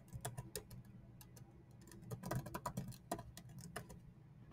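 Faint computer keyboard keystrokes as a password is typed: a short run of key clicks at the start, a pause of about a second and a half, then a longer run of clicks. A low steady hum sits underneath.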